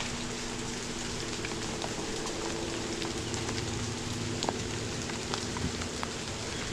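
Steady rain falling, an even hiss with scattered individual drops ticking sharply close by.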